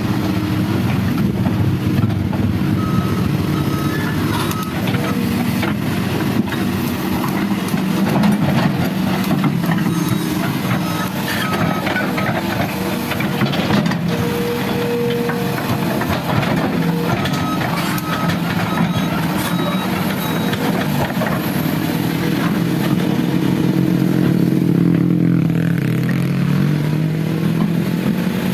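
Heavy construction machinery's diesel engine running steadily, with the engine pitch shifting in the last few seconds.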